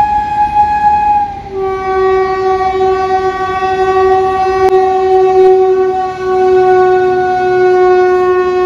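Air horn of an Indian Railways goods train's electric locomotive sounding one long continuous blast as the train passes close. It begins on a single note, then about a second and a half in drops to a lower two-note chord, which is held and sinks slightly in pitch. The running noise of the train lies underneath.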